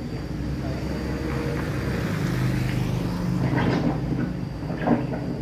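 Steady engine hum of a motor vehicle that grows louder toward the middle and then eases off, with a single sharp knock near the end.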